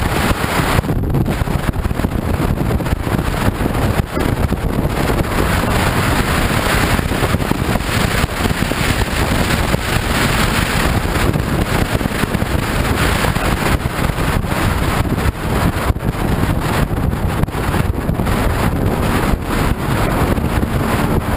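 Steady wind rushing over the microphone of a camera on a motorcycle rider at highway speed, with the bike's running and road noise underneath.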